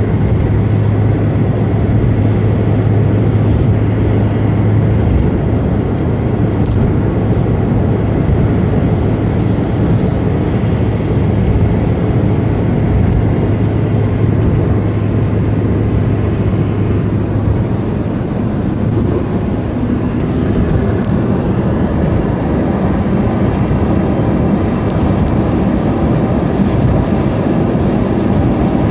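Steady road noise heard from inside a moving taxi at expressway speed: an even rush of tyre and wind noise over a low engine hum, which shifts to a higher pitch a little past halfway.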